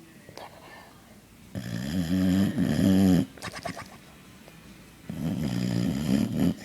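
Boxer dog snoring in her sleep: two long, loud snores a few seconds apart, each with a wavering, rattly pitch.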